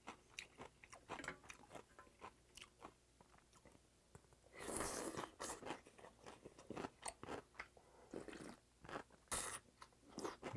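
Close-up mouth sounds of chewing cold kudzu noodles (chik-naengmyeon): many small wet clicks, with a longer slurp from the bowl about four and a half seconds in and a shorter one near the end.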